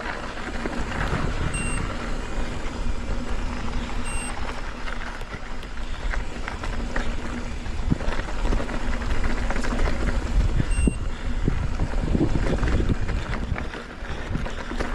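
Mountain bike ridden along a dirt trail: steady rumbling wind and tyre noise with frequent short rattles and knocks from the bike over bumps.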